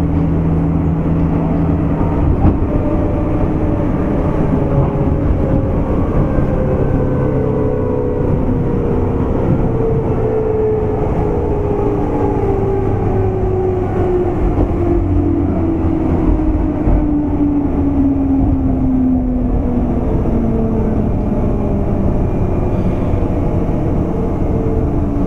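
Running sound of a JR West 201-series chopper-controlled electric train's motor car. The motor whine falls slowly and steadily in pitch as the train slows, over continuous wheel and rail rumble.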